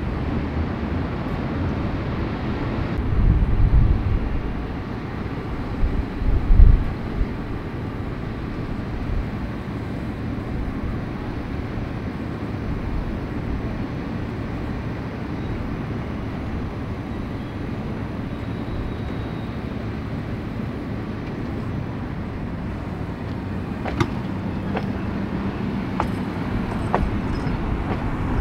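Tatra T3 tram moving slowly off from a stop, a steady low rumble of its running gear on the rails, with two louder low surges a few seconds in. A run of sharp clicks comes near the end.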